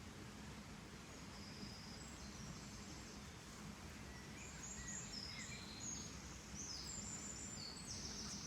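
Small birds chirping in short, high-pitched notes at shifting pitches, getting busier about halfway through, over a faint steady low background rumble.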